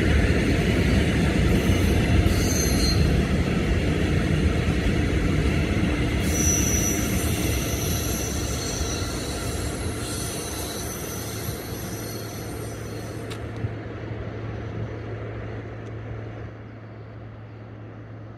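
Container freight train's wagons rolling past on the rails, a steady rumble with high-pitched squealing that comes and goes, fading away as the end of the train moves off. A low steady hum comes up in the last few seconds.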